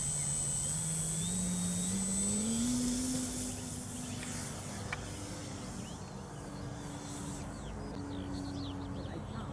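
Electric motor of a radio-controlled model aeroplane running, its pitch stepping up over the first few seconds as the throttle is opened, then holding steady. Birds chirp in the background in the second half.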